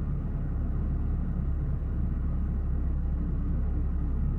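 Perodua Kancil engine idling with the air-conditioning on, a steady low rumble through its newly replaced rear exhaust muffler.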